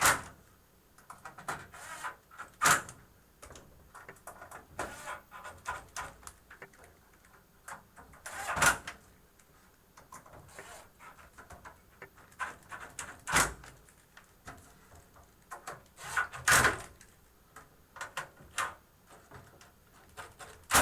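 A 12-volt cordless impact driver driving screws into a metal computer case in about six short bursts, with light clicks and clatter of screws and parts being handled in between.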